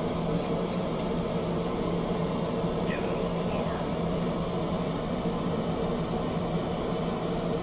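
Propane torch burning steadily into a small KK-6 gas kiln: an even rushing noise with a low hum under it, the kiln lit and heating.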